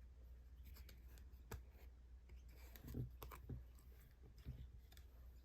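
Near silence with a few faint clicks and light rustles of photocards and their plastic sleeves being handled.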